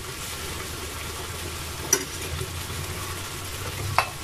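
Monkfish and cherry-tomato sauce simmering in a pan, a steady sizzling hiss over a low hum, with a light click about two seconds in and another near the end.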